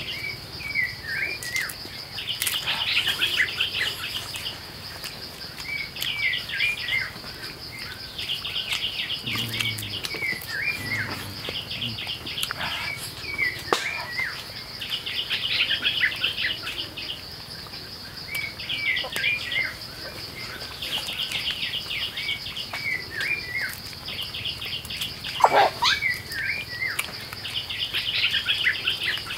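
Forest ambience: a bird repeats the same short phrase about every three seconds, a trill followed by a few quick falling chirps, over a steady high insect drone. Faint clicks are scattered through it, with one sharper click near the end.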